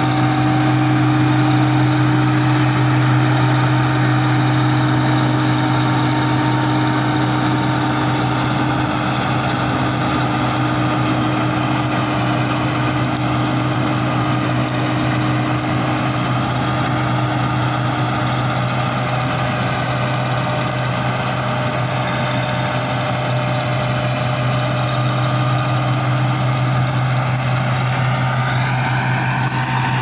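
Combine harvester with a straw-collecting (toori) system running steadily as it works the field: a strong, even engine hum with machinery whine over it. A higher whine rises slightly in pitch near the end.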